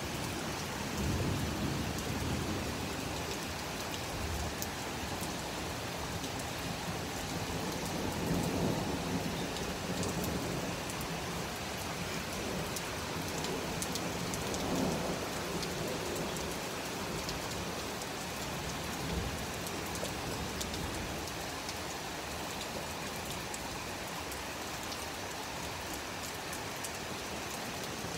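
Heavy rain falling steadily in a thunderstorm, with low thunder rumbling up a few times: about a second in, around eight seconds and around fifteen seconds.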